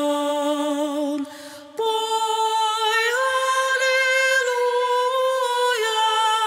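A woman singing slow, long held notes without drums or bass. A short breath breaks the line about a second and a half in, and after it she sings higher.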